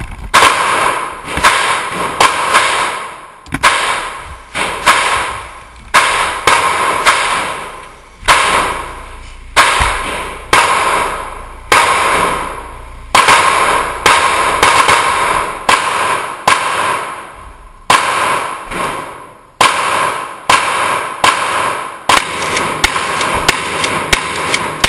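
Gunshots from a 12-gauge pump-action shotgun and other guns firing one after another in an indoor range, each shot ringing out in a long echo off the concrete. The shots come every half second to a second and a half with no break, the loudest a little over a second apart.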